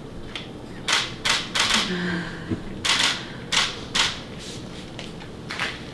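Camera shutter firing a series of separate frames, about eight sharp clicks at irregular spacing. A soft voice is heard faintly about two seconds in.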